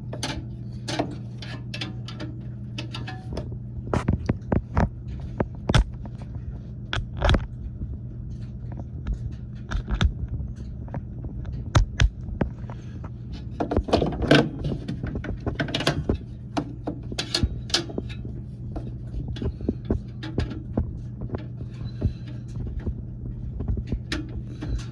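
A steady low hum runs under irregular clicks, knocks and scrapes of tools and metal furnace parts being handled while the flame sensor is taken out and cleaned.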